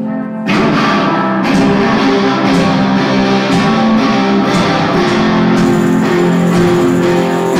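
Live rock band playing an instrumental passage led by electric guitar. The full band comes in loud about half a second in, with accents about once a second.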